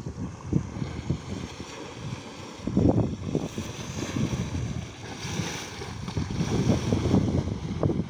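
Wind buffeting the microphone in gusts, over the wash of small waves on the shallow shore.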